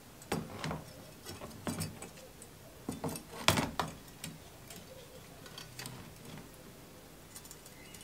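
Wire bail handle of a cast iron Dutch oven, hung on a thin metal rod, clinking and tapping against the rod and the rim of a plastic tub as it is lowered into water and lifted again. About a dozen light metallic clicks, the loudest about halfway through, with fainter ticks toward the end.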